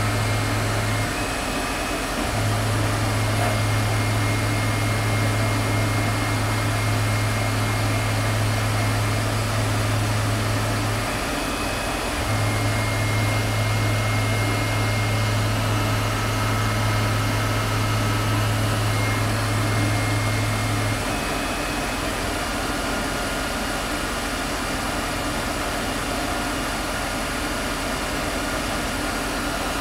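A Tormach CNC lathe runs a hard-turning pass, a cubic boron nitride insert taking a thin cut on a hardened steel dowel pin. There is a steady mechanical drone with a low hum that drops out briefly twice and stops about two-thirds of the way through, while the machine noise carries on.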